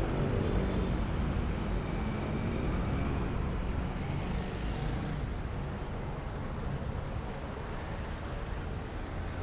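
Road traffic and wind rumble heard from a moving bicycle: a steady low rumble with a faint engine hum in the first few seconds, and a brief hiss about four seconds in.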